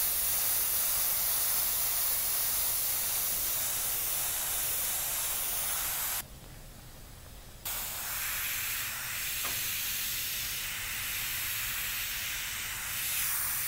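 Iwata Revolution airbrush hissing steadily as compressed air sprays paint. The hiss cuts off about six seconds in and starts again a second and a half later.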